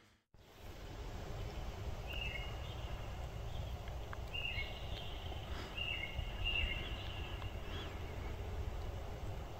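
Outdoor lakeshore ambience: a steady low rumble of wind on the microphone, with a bird giving four or so short whistled calls, each a high note stepping down to a lower one, from about two seconds in until near the end.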